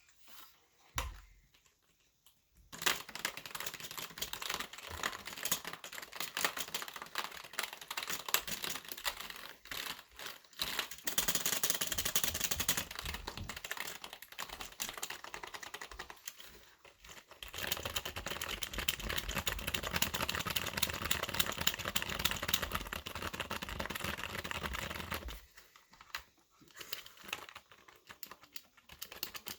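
Fast, hard typing on a computer keyboard: rapid streams of key clicks in long flurries, starting about three seconds in, with brief pauses in the middle and thinning to scattered keystrokes near the end.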